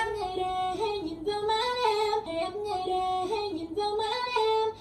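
A woman's voice singing a melody in clearly stepped notes, breaking off abruptly at the end.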